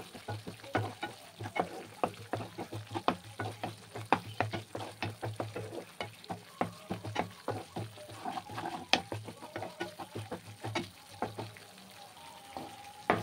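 Spatula scraping and knocking against a non-stick kadai as a yogurt-based masala is stirred and fried down, with a light sizzle from the oil underneath. There are several quick scrapes and taps each second.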